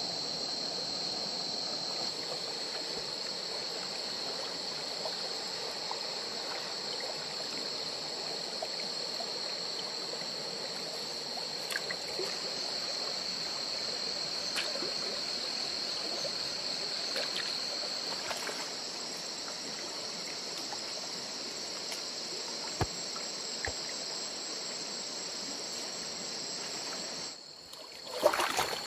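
Shallow stream trickling steadily over sand and pebbles under a steady high-pitched chorus of night insects, with a few faint clicks. Near the end the insect sound cuts off and water splashes briefly as a net is lifted from the stream.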